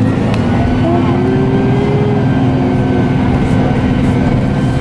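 A 2008 ElDorado National E-Z Rider II MAX CNG bus's Cummins Westport B Gas Plus engine and Allison B300R transmission running at a steady speed, heard from inside the cabin: a steady drone under a steady high whine.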